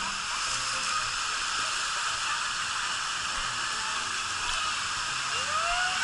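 Steady rush of water pouring down a water slide. A person's voice rises into a call near the end.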